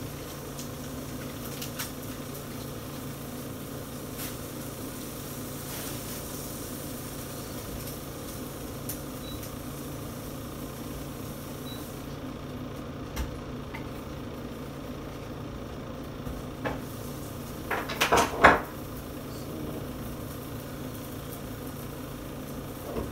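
Hands handling an airsoft pistol's CO2 magazine: scattered light clicks, then a short run of louder knocks and rattles about eighteen seconds in. A steady low hum runs underneath.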